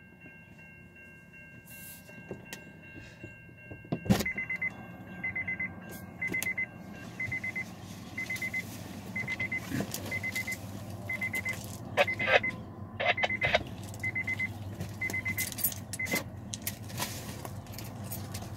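A high electronic beep repeating about once a second, with a sharp knock about four seconds in and bursts of clicking and rattling a little after the middle, over a steady low hum.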